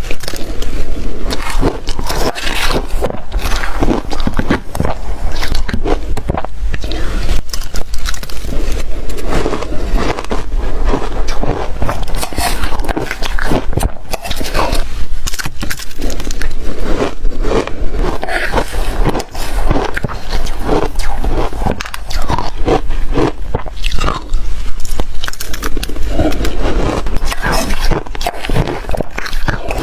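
Close-miked biting and chewing of shaved freezer ice: a continuous run of crisp, irregular crunches and scrapes.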